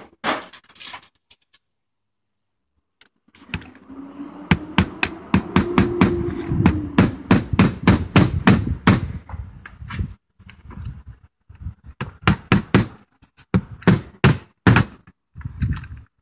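Hammer driving nails into a metal drip edge at a roof eave: a fast run of blows, about four or five a second, then a short pause and a second run of strikes near the end.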